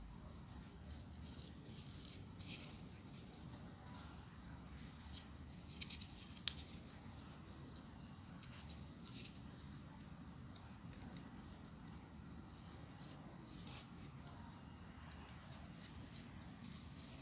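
Folded paper units of a 3D origami model rubbing and scratching against each other as fingers press and slide them into place, with scattered crisp paper ticks, the loudest about six seconds in and near the end.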